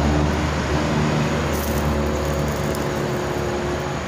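Road traffic passing below, led by the steady drone of a large vehicle's engine that slowly fades.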